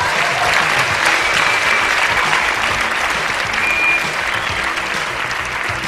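Pageant audience applauding steadily as a contestant is called into the semifinal places, with faint music underneath.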